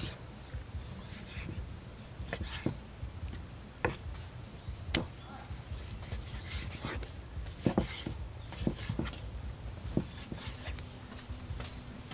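Large kitchen knife cutting through raw beef and knocking on a wooden chopping board: irregular sharp knocks, about one a second, over a low steady hum.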